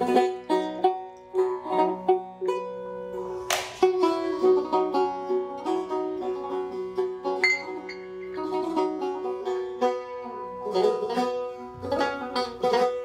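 Persian long-necked fretted lute played solo: quick plucked melody notes over strings left ringing as a steady drone, with a few rapid strummed flurries.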